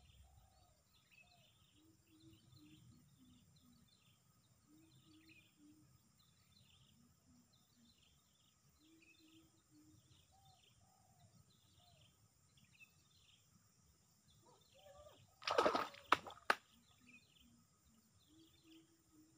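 Small birds chirping again and again, with a lower short call repeating every few seconds underneath. About fifteen seconds in comes a brief loud noisy burst, then a single sharp click.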